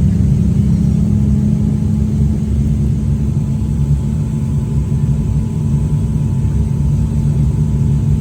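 Aircraft engines running in a steady drone during landing: a steady low hum over a rumble, with a faint higher whine, the level staying even.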